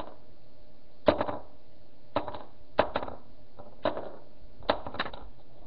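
Small hard clay charms dropping one after another onto a tabletop: about eight sharp knocks, several coming in quick pairs.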